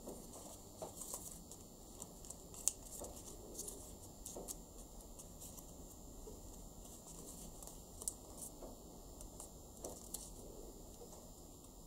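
Origami paper being folded and pressed by hand: soft crinkling with scattered small ticks as the creases are made, the sharpest a few seconds in.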